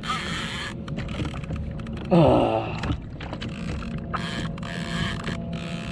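A fishing reel being cranked in spurts, its gears whirring and clicking. About two seconds in there is a short, loud vocal grunt.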